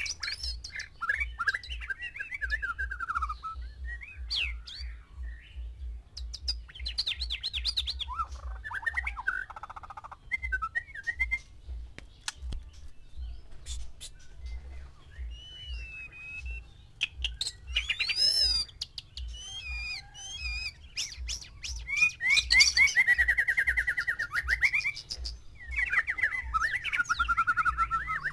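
White-rumped shama singing: varied phrases of clear whistles, fast trills and quick up-and-down notes, one after another, loudest near the end.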